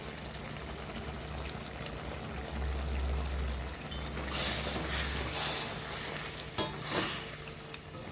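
Chicken curry base simmering and sizzling in oil in a steel kadai. From about halfway, a slotted spoon stirs and scrapes through the pieces, with one sharp knock of the spoon on the pan near the end.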